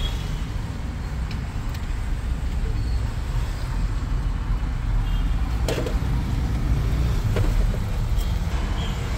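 Steady low vehicle rumble, with a couple of sharp clicks from the plastic and metal steering-wheel parts being handled: one a little past halfway and another almost two seconds later.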